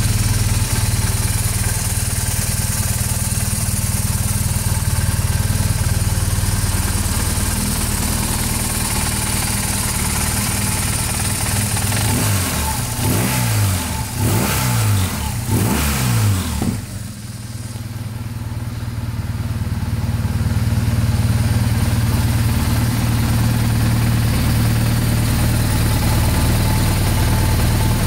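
BMW R1200GS Adventure's boxer twin engine idling steadily. About halfway through it is given several quick throttle blips, each revving up and falling back, then it settles back to a steady idle.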